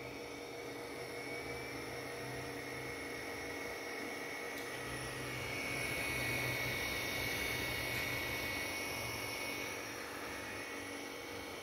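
Cooling fan of a Sanyo Denki SanMotion RS1A05AC AC servo amplifier running under power: a steady whir with a thin high whine, growing somewhat louder for a few seconds in the middle.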